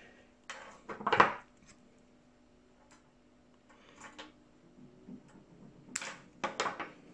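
Small scissors picked up off a wooden bench with a short clatter about a second in, followed by a few light clicks of handling and, near the end, a few sharp snips as they trim the fluorocarbon tag end of a freshly tied uni knot.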